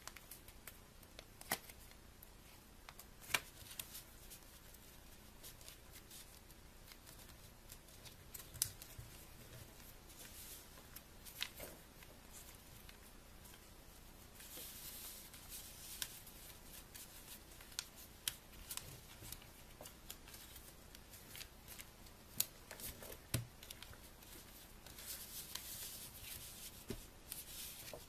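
Sheet of paper being folded and creased by hand: faint, scattered sharp crackles as folds are pressed, with two longer stretches of rustling, one midway and one near the end.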